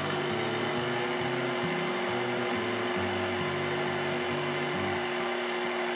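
Food processor motor switched on and running steadily, a constant whirring hum, blending dry flour with salt and ground spices.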